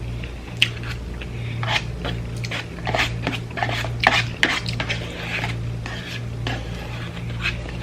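Spoon and fork clinking and scraping against a plate or food container during eating: a quick, irregular run of clicks and scrapes, busiest and loudest around the middle. A steady low hum runs underneath.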